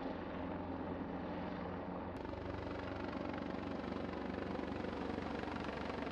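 Heavy helicopter in flight at a distance, its rotor and turbines giving a steady drone.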